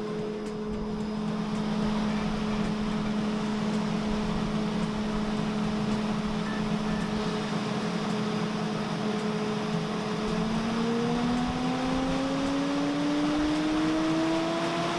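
Pulverizer hammer mill running with a steady whir and hum. About two-thirds of the way through, the hum begins to rise steadily in pitch as the machine speeds up.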